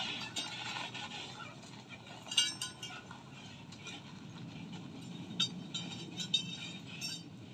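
Toyota Hilux pickup's engine idling with a steady low hum, with scattered short sharp clicks over it, the loudest about two and a half seconds in.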